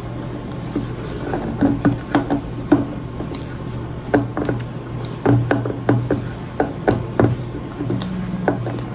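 A spoon stirring thick bolinho de chuva batter in a bowl, knocking against the bowl's sides in irregular clinks and taps.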